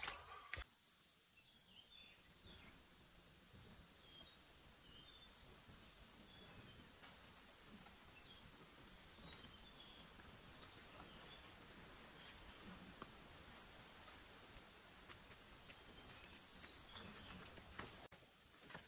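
Faint, steady high-pitched chirring of insects, with a few soft ticks and rustles.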